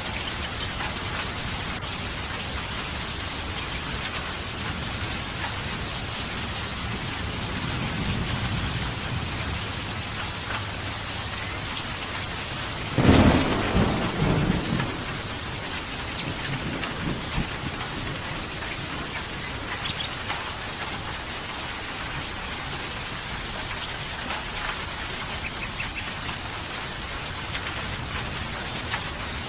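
Steady heavy rain, with a thunderclap about halfway through: a sharp crack that rolls into a rumble for a couple of seconds. A softer rumble of distant thunder comes a few seconds before it.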